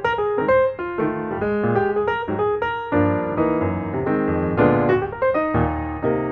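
Background piano music: a quick run of single notes over chords, growing fuller about halfway through.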